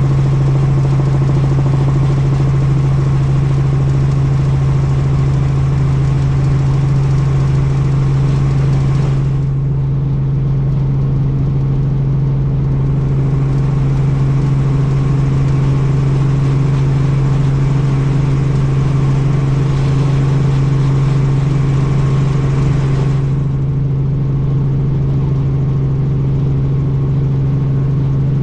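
Helicopter in flight: steady engine and rotor noise with a strong, even low hum.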